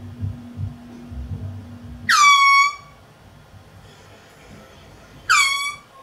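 Two short air horn blasts about three seconds apart. Each swoops quickly down into a steady, loud, high blare lasting under a second. Before the first blast there is a steady low hum with some low thuds.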